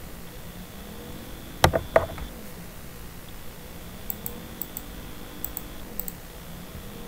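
Computer keyboard clicks: two louder knocks close together about a second and a half in, then a scatter of light, faint clicks in the second half.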